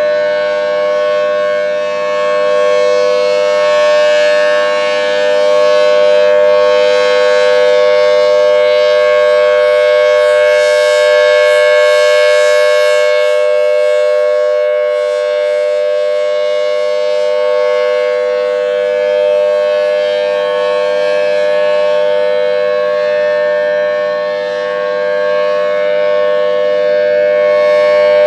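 Federal Signal Thunderbolt 1000T tornado siren sounding a steady two-tone alert chord. The pitch holds level, and the loudness swells and fades slightly.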